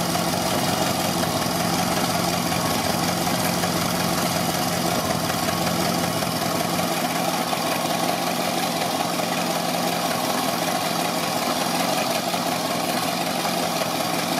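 1957 Ford Fairlane 500's Thunderbird Special V8, fuelled by a Holley Sniper 2V electronic fuel injection throttle body, idling steadily with no revving.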